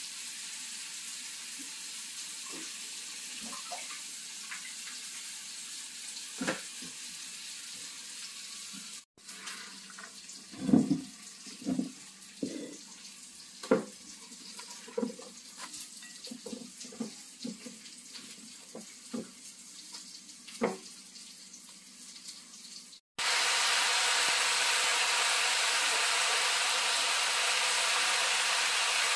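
Chopped amaranth, spinach and chili sizzling in a hot pan, with a utensil knocking and scraping against the pan as the greens are stirred. The sizzle breaks off twice and comes back louder for the last few seconds.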